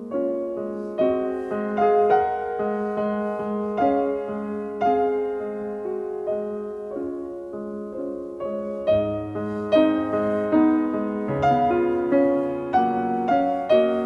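Background piano music, notes and chords struck at an even, unhurried pace.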